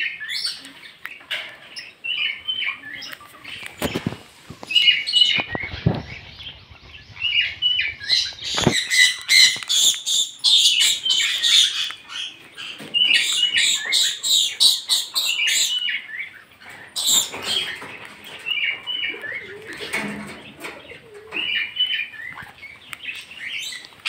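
Captive parrots (sun conures, lories and lorikeets) calling: a steady string of short, high chirps and screeches, busiest in the middle stretch. A few low thumps of handling on the microphone come early.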